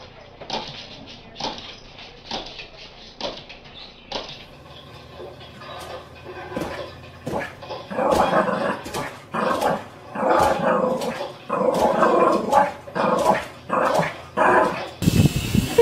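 A dog barking over and over, about one or two barks a second. The barks are quieter at first and much louder from about halfway through.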